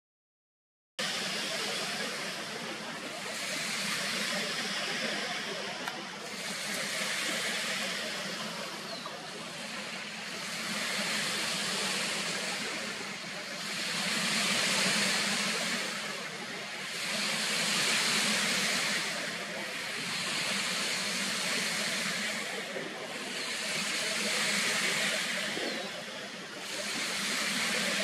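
Summer insect chorus: a high buzzing hiss that swells and fades in waves about every three seconds, starting suddenly about a second in.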